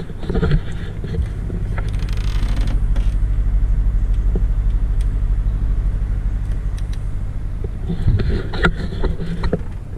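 An engine running steadily with a fast, even low pulse, with a few knocks and bumps about half a second in and again near the end.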